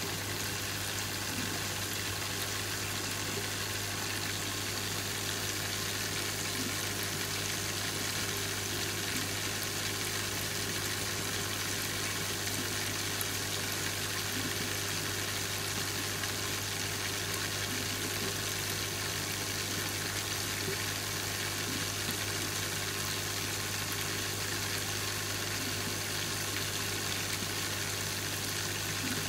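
Saltwater aquarium equipment running: a steady low hum of pumps under a constant hiss of moving water.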